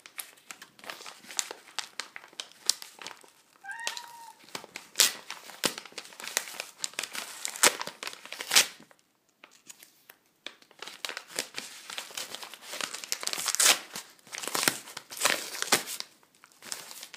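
Paper packaging crinkling and rustling in irregular bursts as it is opened and unfolded by hand. A short cat meow comes about four seconds in.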